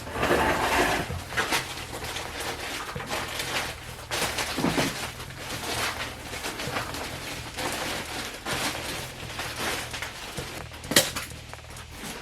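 Irregular clatter and knocks of hand work on the building's framing and materials, with a louder scraping stretch in the first second and one sharp knock about eleven seconds in.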